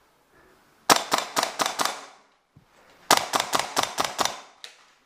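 Gas blowback airsoft gun firing two quick strings of about six sharp shots each, roughly two seconds apart, with one weaker shot just after the second string.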